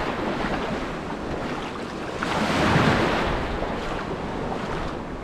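Wind rushing over the microphone with shallow water washing and lapping. The noise swells louder for about a second midway.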